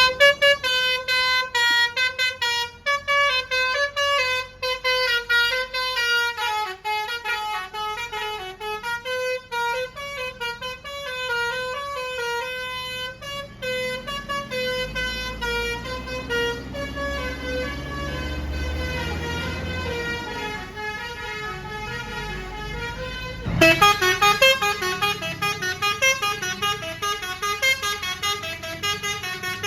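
Telolet basuri bus horn, a multi-tone musical horn playing a quick melody of stepping notes. The melody thins out midway over a low rumble, then starts again louder after about twenty-three seconds.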